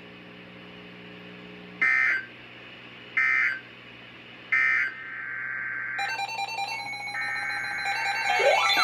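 Three short bursts of Emergency Alert System digital data tones, the end-of-message code sent three times, about a second and a half apart. They are followed by a steady electronic tone that other steady tones join about six seconds in, growing louder near the end.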